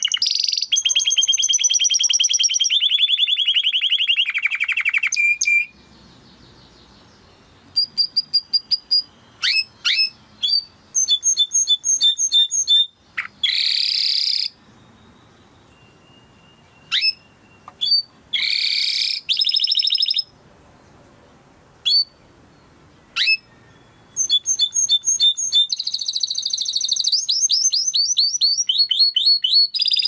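Domestic canary singing. Long, rapid trills open and close the song. In the middle come short phrases of repeated chirps and quick falling whistles, broken by pauses.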